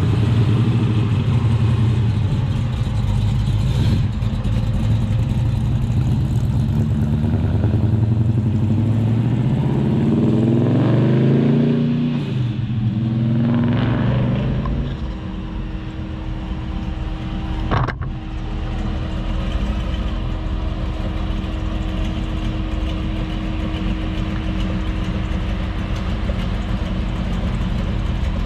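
Car engines as cars drive out of a car show lot: a deep, loud engine note for the first half, with revs climbing in several rising sweeps as a car accelerates away, then a quieter, steadier engine running near idle. A single sharp click about two-thirds of the way through.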